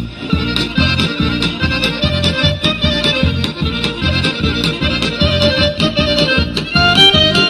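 Accordion-led Macedonian folk dance music for an Aegean oro (egejsko oro), a melody over a steady, quick beat.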